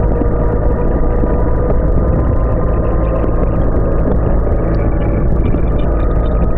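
Motorcycle riding at speed: steady wind roar and engine noise on a bike-mounted microphone.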